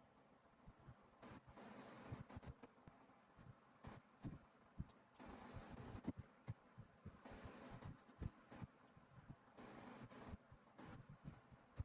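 Faint handling sounds of small wires being cut, stripped and twisted together for a splice: scattered soft clicks and short rustles, over a steady high-pitched whine.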